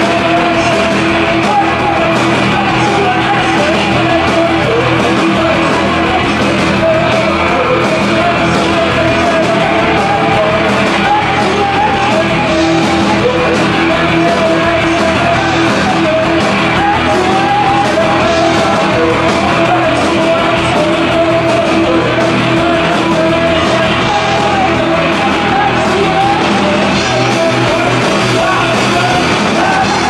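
Live punk rock band playing loud: electric guitar, drums hit at a steady beat, and a lead vocal sung and yelled over them.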